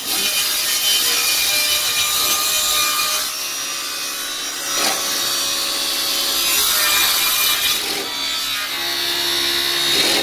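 A vertical panel saw's spinning circular blade cutting through a sheet of plywood, a loud, continuous sawing noise.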